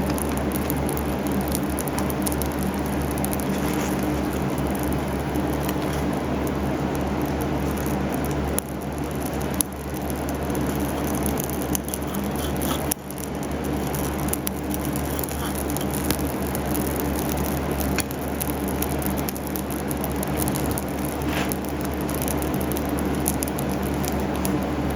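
Metal-melting furnace running steadily with a constant low hum and light crackling, as oil on the scrap copper wire burns off in the heat.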